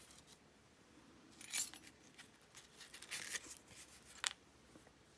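Small metal padlock parts clinking and tapping as they are handled: a few light clicks, the loudest about a second and a half in, a short cluster around three seconds, and a sharp single click near the end.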